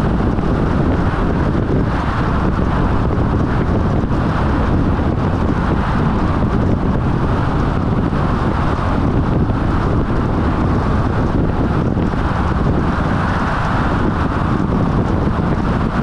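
Steady wind and road noise from a vehicle driving at expressway speed, with wind rumbling on the microphone.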